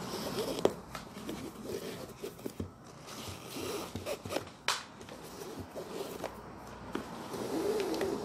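Thread being pulled through a sneaker by hand while it is stitched around to reinforce it, making zipping drags, rustling and small clicks, a little louder near the end.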